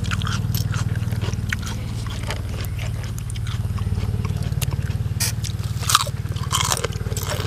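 Close-miked eating: people biting and chewing blood cockles and spicy green papaya salad, with many small clicks and crunches and a sharper click about six seconds in, over a steady low rumble.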